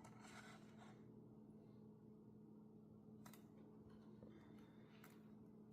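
Near silence: room tone with a steady low hum and a few faint, soft rustles.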